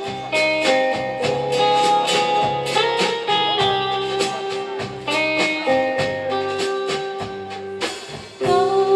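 Live band playing an instrumental passage in the Finnish rautalanka guitar style: a guitar melody of held notes over guitar chords and a drum kit, with no vocals.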